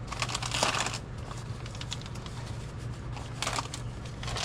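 Clear plastic sheet crinkling and rustling under the hands as it is smoothed over a drysuit's glued neck ring to work out wrinkles. There is a longer burst in the first second and shorter ones later, over a low steady hum.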